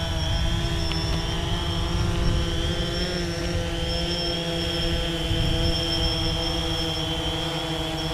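A drone's motors and propellers whining steadily: several close steady tones together over a low rushing noise, with small shifts in pitch.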